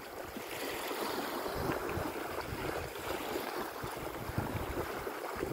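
Small waves lapping on a sandy river shore, a steady wash of water, with wind gusting across the microphone.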